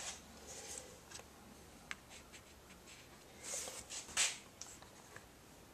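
Faint scratching of a brush on paper: a few small clicks, then two short scratchy strokes in the second half.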